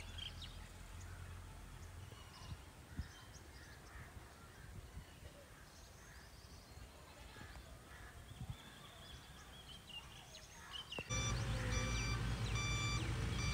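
Quiet outdoor background with faint, scattered bird calls. About eleven seconds in, background music with an electric piano begins.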